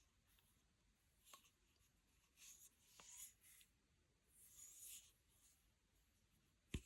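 Faint scratchy rustling and scraping, as items are handled and unpacked, with a few light clicks and one sharp knock near the end.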